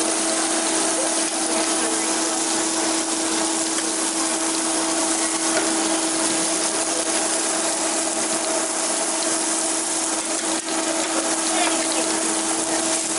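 Street food stall ambience: a steady hiss with a constant low hum under it, and faint voices in the background.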